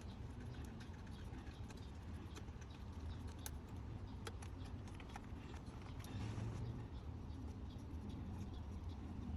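Scattered faint clicks and light taps, about one a second, as hand tools and small engine parts are handled, over a low steady hum.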